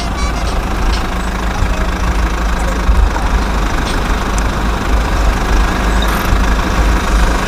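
A small engine or motor running steadily with a low rumble.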